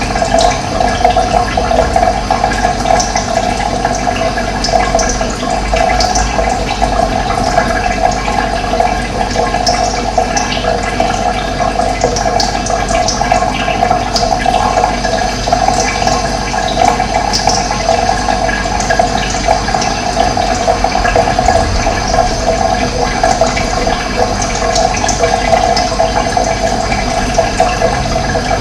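Running water flowing and splashing steadily, with scattered faint high chirps of birds.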